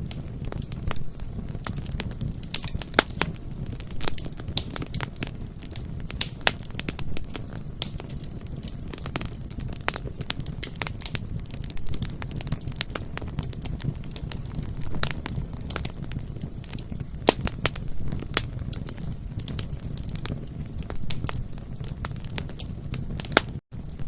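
Bonfire crackling, with sharp pops at irregular intervals over a low, steady rumble of the burning wood. The sound cuts out for a split second near the end.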